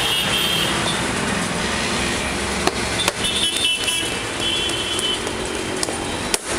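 Steady din of street traffic, with brief high-pitched horn toots now and then and a few sharp clicks.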